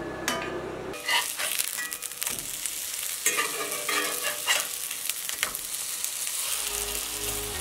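Bean burgers sizzling steadily as they fry in oil in a pan, with a slotted spatula scraping and knocking against the pan several times as they are turned. Music comes in faintly near the end.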